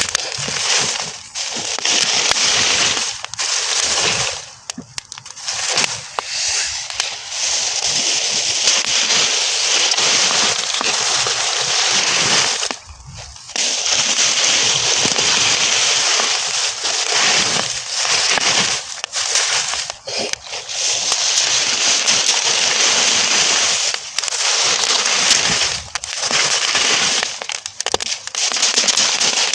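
Burning straw crackling densely, a fast, irregular stream of pops and snaps, dropping away briefly a few times.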